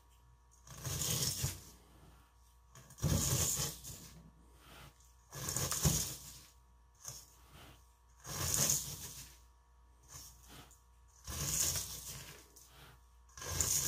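A rigid spatula scraping granular fine silver crystal off the sides and bottom of a stainless steel bowl: about six crunchy scraping strokes, one every two to three seconds. The crystal comes away easily.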